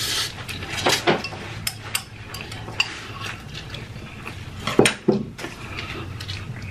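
Close-up eating sounds: noodles slurped and chewed, with chopsticks clicking against a bowl in scattered sharp ticks. The louder mouth sounds come about a second in and again near five seconds.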